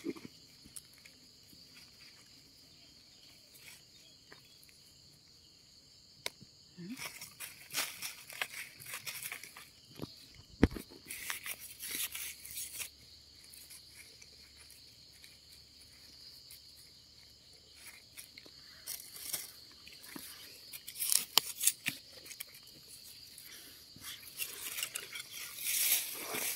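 Hands rustling and crunching through dry leaf litter and soil while digging termite mushrooms out of the ground, with scattered clicks and one sharp knock about ten seconds in. Night insects chirr steadily underneath.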